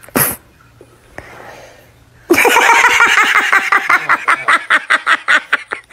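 A person laughing hard in rapid pulses, starting a little over two seconds in. There is a brief sharp sound just before it, near the start.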